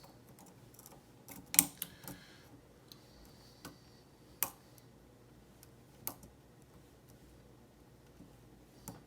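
Lock pick and tension wrench working in a Schlage SC1 pin-tumbler cylinder: scattered sharp metal clicks, a cluster of three in the first couple of seconds, then single clicks every second or two.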